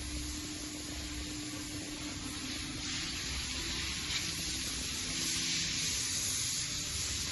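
YCM NMV106A vertical machining center running: a steady hiss over a low hum and a faint steady tone. The hiss grows a little louder about three seconds in and again about five seconds in.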